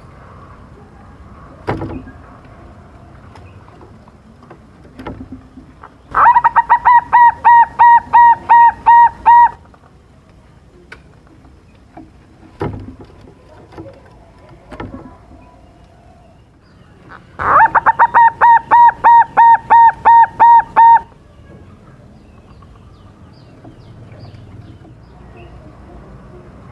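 Silver-morph zebra dove (perkutut) calling: two runs of quick, evenly repeated cooing notes, about four a second and a dozen or more per run. The first comes about six seconds in and the second after about seventeen seconds, each lasting some three seconds.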